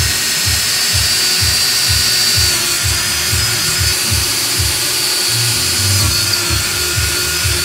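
Cordless drill running continuously, its bit boring into a wooden board, with a steady motor whine. It starts abruptly at the beginning and keeps running to the end. Background music with a steady beat plays underneath.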